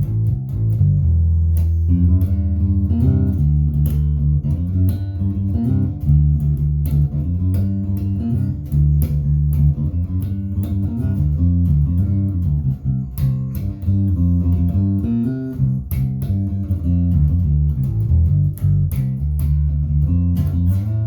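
Harley Benton JJ-55 OP electric bass with nickel strings, played fingerstyle through a small amp in a continuous run of plucked notes, with string click on the attacks. It is set up to give a P-bass-style tone.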